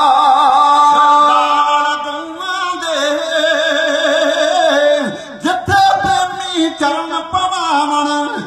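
Music: a man singing, his voice wavering in pitch, with a brief lull about five seconds in.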